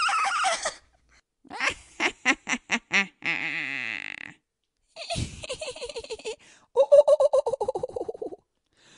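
Children laughing and giggling in a string of short, separate clips, each a second or two of quick ha-ha pulses or a high squeal, with brief silences between them.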